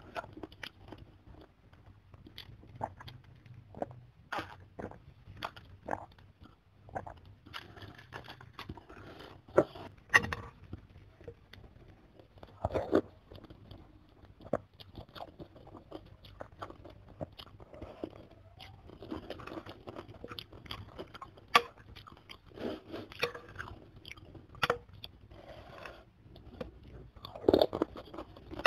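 Close-up eating sounds: chewing and slurping glass noodles and chicken in soto broth, with many short clicks from a spoon and fork against the bowl.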